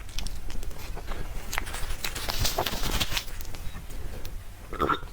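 Close-miked eating: soft, wet chewing and smacking mouth clicks, with a longer stretch of moist crackling about halfway through.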